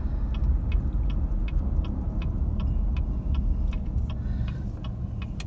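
Inside a car: low steady road and engine rumble, with the turn signal clicking evenly about two and a half times a second as the driver signals a turn.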